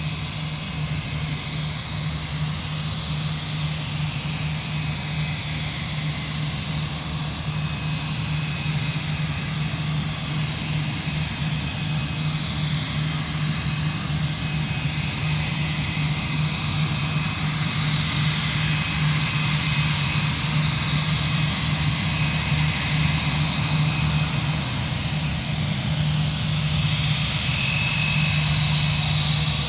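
Airbus A319's IAE V2500 turbofan engines running at taxi idle: a steady high whine over a low hum, growing slowly louder as the jet taxis closer.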